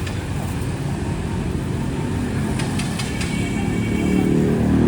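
Road traffic rumbling steadily, with a few sharp clicks a little past halfway. Near the end a passing vehicle's engine grows louder and rises in pitch as it accelerates.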